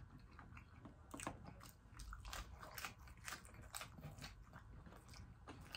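Close-miked biting and chewing of extra-crispy fried battered seafood: a faint, irregular run of sharp crunches as the batter breaks in the mouth.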